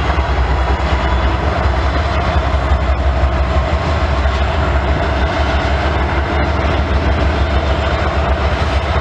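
Diesel locomotive running steadily: a deep, constant rumble with a steady mid-pitched tone over it, as it charges the stalled train's air brake line.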